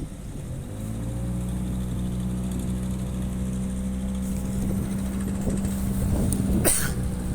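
Boat engine speeding up in the first second, then running at a steady pitch. A brief sharp noise near the end.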